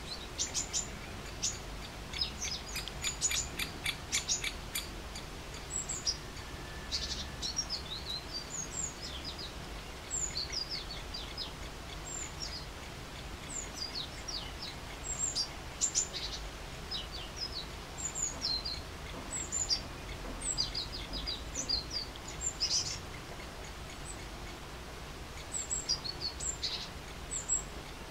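Small birds chirping: short high chirps and quick down-slurred calls scattered throughout, with a fast run of chirps in the first few seconds, over a low steady background rumble.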